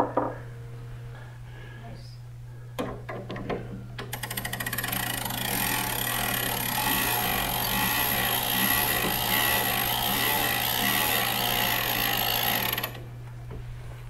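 Herschede tubular chime clock's brass movement: a few sharp clicks, then from about four seconds in a rapid, steady mechanical clicking whir for about nine seconds that cuts off suddenly.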